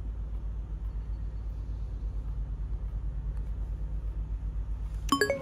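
Low, steady road rumble inside a car's cabin. A short bright chime rings out near the end.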